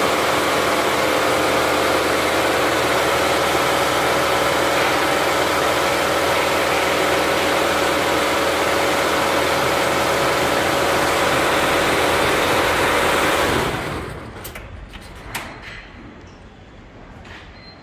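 Richpeace 20-head flat embroidery machine running at 1200 RPM: a loud, steady mechanical running sound with a steady tone in it. About fourteen seconds in the sound drops away sharply, leaving a few light clicks and knocks.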